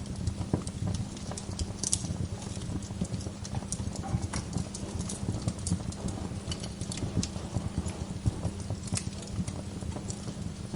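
Wood fire burning in a fireplace, with a steady low rumble of the flames and many irregular sharp crackles and pops from the burning logs.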